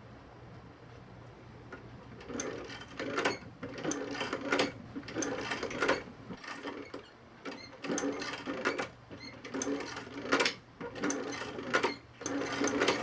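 Sewing machine stitching a leather reinforcing patch into an off-road boot, running in short spurts of about a second with brief stops between them, starting about two seconds in.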